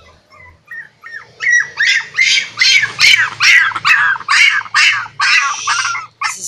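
Pinscher puppy yapping in a fast run of short, high-pitched barks, about two a second, getting louder about a second and a half in: play barks aimed at a bigger dog.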